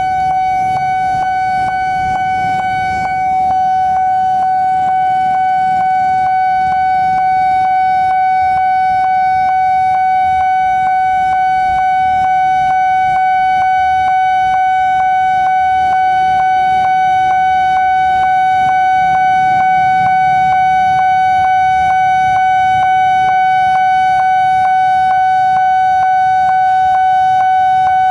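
Railway level crossing warning alarm ringing on and on: a steady high tone with an even beat of strikes running through it, and a low rumble underneath.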